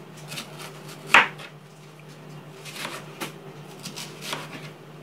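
Kitchen knife chopping an onion on a plastic cutting board: a handful of uneven knife strikes against the board, the loudest about a second in.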